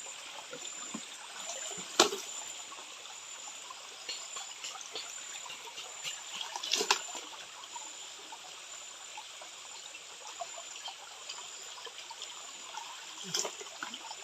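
Shallow stream water trickling steadily, with three short sharp sounds breaking in, the loudest about two seconds in, one near the middle and one near the end.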